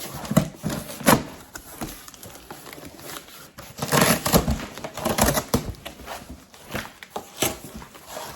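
Wooden box being handled and opened by hand: scattered knocks of wood on wood, with a louder stretch of scraping and rustling a few seconds in.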